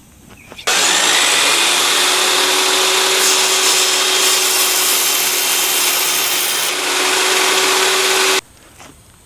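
A power tool running steadily on wood for about eight seconds, starting and stopping abruptly.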